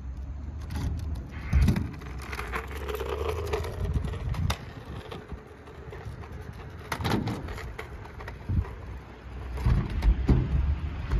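Kick scooter's small hard wheels rolling over asphalt and concrete ramps, a low rumble broken by several sharp knocks as the wheels hit ramp edges and joints.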